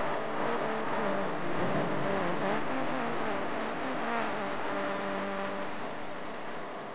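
Roar of a large rally crowd cheering and chanting, many voices whose pitch rises and falls over a dense wash of noise.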